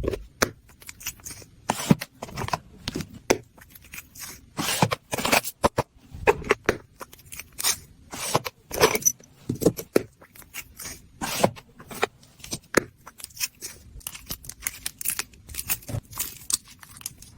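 Packaging torn and handled by hand: a string of irregular tearing, scraping and crinkling noises, short and uneven, with no alarm tone.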